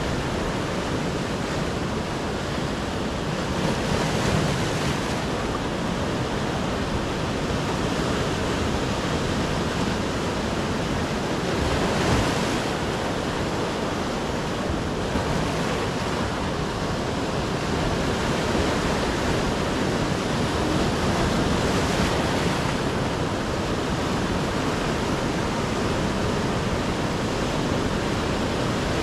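Sea waves breaking and washing up on a beach: a steady rush of surf that swells louder a few times as larger waves come in.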